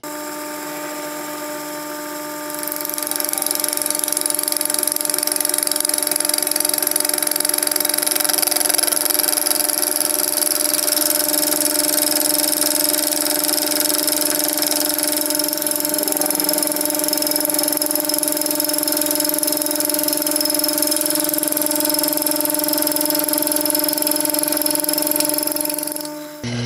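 Sherline milling machine running with a fly cutter taking a light facing pass, about five thousandths of an inch, across cold rolled steel. A steady motor whine, joined about two and a half seconds in by a loud, even cutting hiss as the cutter sweeps the plate; the sound drops away just before the end.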